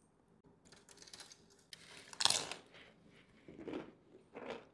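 Close-miked eating sounds: a person chewing mouthfuls of a brisket burrito bowl, in several short bursts about a second apart, the loudest about two seconds in.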